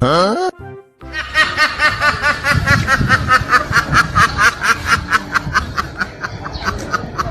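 A short rising whistle-like glide, then about a second in a long run of rapid, rhythmic laughter, a laughter sound effect of many quick 'ha' pulses a second.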